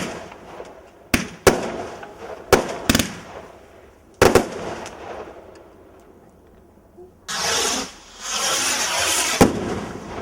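Fireworks going off: a quick run of about six sharp bangs, each trailing away, then a lull, and a long rushing hiss from about seven seconds in that ends in another bang.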